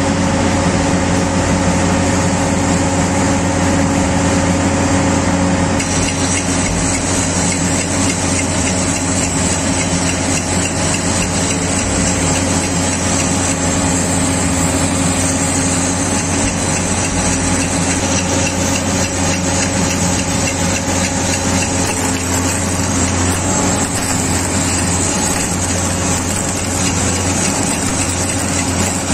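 Mobile rail flash butt welding machine running steadily: an engine drone with a steady hum, taking on a harsher hissing edge from about six seconds in.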